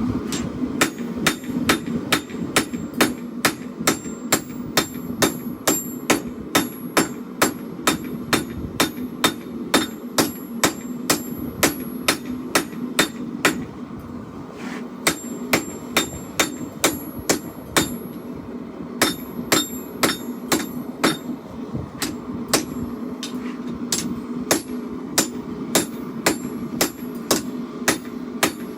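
Hand hammer striking hot steel on an anvil in a steady rhythm of about two blows a second, each blow leaving a bright metallic ring, with a few short pauses between runs of strikes. A steady low hum runs underneath.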